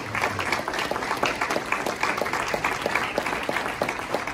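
An audience applauding: many hands clapping at once, dense and steady.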